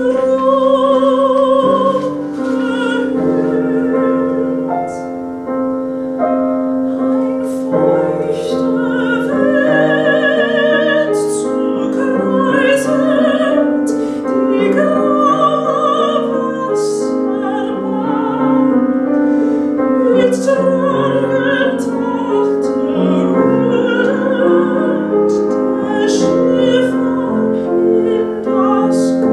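Soprano singing an art song with wide vibrato, accompanied by a grand piano.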